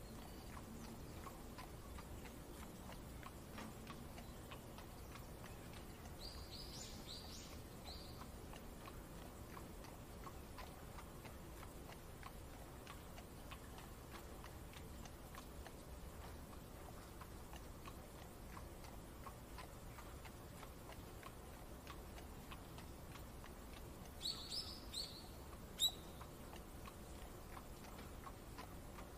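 Faint, steady clip-clop of a horse's hooves drawing a carriage, over an even rain hiss. Small birds chirp in short bursts about six seconds in and again near the end, the last chirp being the loudest sound.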